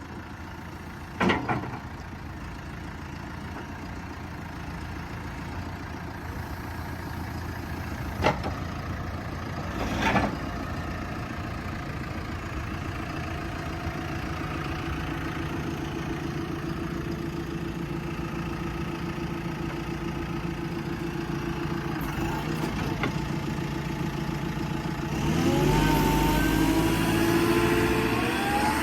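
JCB 3C backhoe's diesel engine running steadily, with a few sharp knocks in the first ten seconds. Near the end it grows louder with rising whines as the engine revs up.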